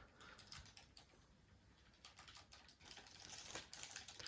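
Faint clicking and rustling of trading cards being handled and laid down.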